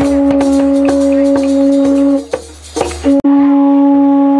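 Conch shell blown in long steady blasts: one held for about two seconds, a brief break, then a second blast starting about three seconds in.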